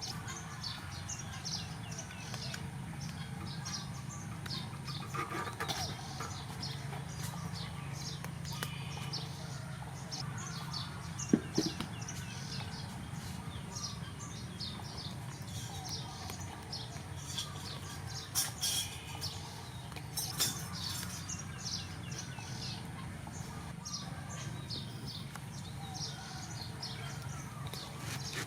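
Small birds chirping again and again over a steady low background hum. About eleven seconds in there is one brief loud low-pitched sound, and two short noisy bursts come near the eighteen- and twenty-second marks.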